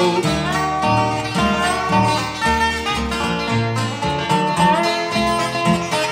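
Bluegrass band playing with no singing: a dobro's sliding lead notes over banjo, guitar and bass.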